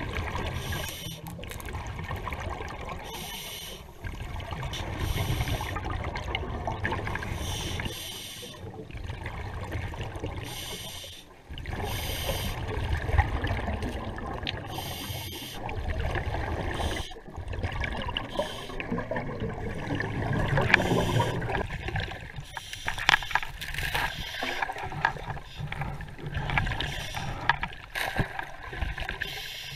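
Scuba diver breathing through a regulator underwater: a hiss on each inhale alternates with the low bubbling rumble of exhaled air, in a cycle repeating every few seconds.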